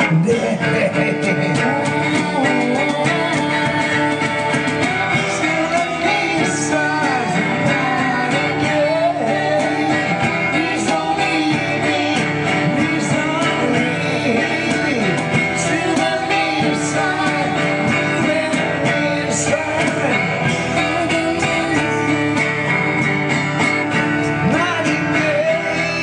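Live acoustic duo: a twelve-string acoustic guitar strummed, with a woman singing lead and a man's voice joining in.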